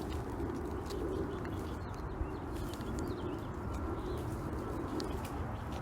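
Low, repeated bird calls swelling and fading every second or so, over a steady low rumble of background noise.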